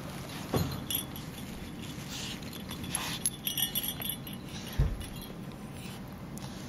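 Two puppies wrestling: metal chain collar jingling and clinking, loudest about three to four seconds in, over scuffling on the couch, with two low thumps, one about half a second in and one near five seconds.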